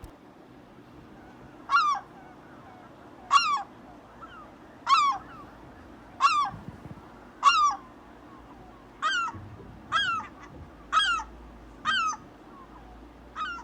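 A goose honking over and over: about ten short calls, each a fraction of a second long, spaced about a second or more apart.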